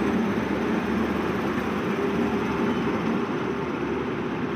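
WAP-7 electric locomotive of a departing passenger train rolling slowly past, a steady rumble of its wheels on the rails.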